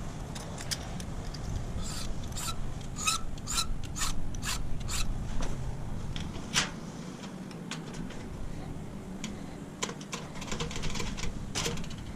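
Hand file cutting into a key blank in short strokes, about two a second, with a pause of a couple of seconds before a second run of strokes: the cuts being filed deeper while impressioning a key by hand.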